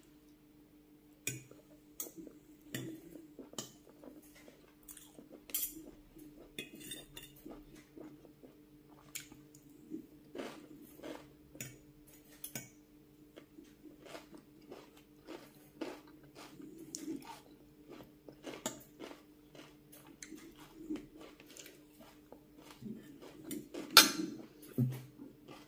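A metal spoon and fork scrape and clink against a glass bowl of rice, with chewing sounds between the strokes. One louder clink comes near the end, and a low steady hum runs underneath.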